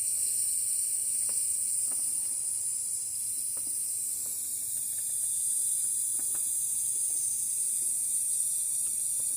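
Steady high-pitched hiss with a few faint, light ticks scattered through it, during hand soldering on an LED strip.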